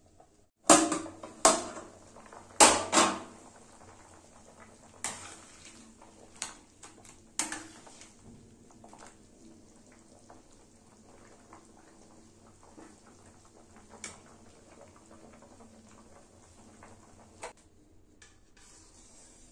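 Metal plate lid clattering loudly against an aluminium kadai as it is lifted off and set down, four sharp clanks in the first three seconds. Then a metal spatula knocks and scrapes in the pan of chicken livers in water, with a few smaller knocks and light taps.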